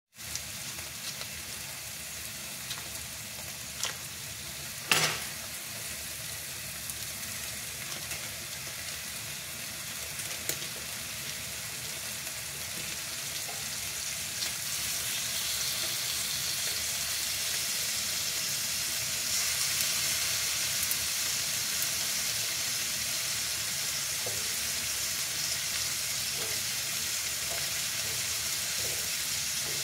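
Lamb pieces sizzling in a stainless steel pan, with a steady frying hiss that grows louder about halfway through. There are a few light clicks, and one sharp knock about five seconds in.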